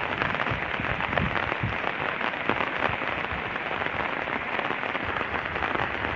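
Heavy rain falling steadily, a dense, even patter of many drops.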